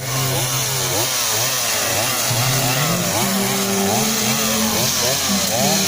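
Two-stroke chainsaw running, its engine pitch rising and falling over and over as the throttle is worked.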